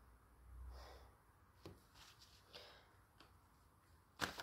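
Near silence with faint handling of tarot cards on a table: a soft swell about half a second in, a few quiet taps and slides, and a brief louder rustle near the end as the deck is picked up.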